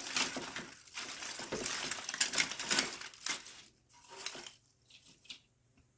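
Crackly rustling of greenery picks and string lights being handled and pushed into an arrangement, dense for the first few seconds, then dying down to a few scattered ticks.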